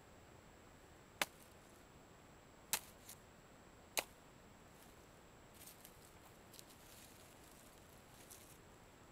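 Three sharp clicks about a second apart, then faint, uneven jingling of butted steel chainmail rings as the mail is handled and lifted.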